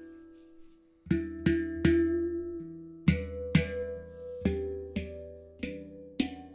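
Handpan in the E Atargatis 12 (La Sirena, E Dorian) tuning, nitrided steel, played by hand. The ring of the last notes dies away almost to nothing about a second in. Then about nine single notes are struck in an unhurried melody, each ringing on under the next.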